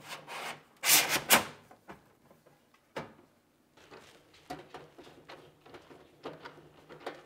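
Stainless steel visor panel sliding along its metal bracket under an over-the-range microwave: a loud metal-on-metal scraping rub in a few strokes about a second in, and a sharp click near three seconds. After that come faint small taps and scrapes as a bolt is fitted by hand to lock the visor in place.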